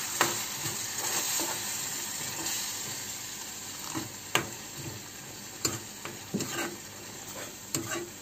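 Tomato gravy sizzling in a non-stick pan on the stove while a spatula stirs it, with a few sharp scrapes and knocks of the spatula against the pan.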